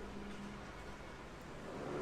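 Steady rain hiss mixed with distant construction-site machinery; a faint steady hum fades out about a third of the way in, and the noise swells near the end.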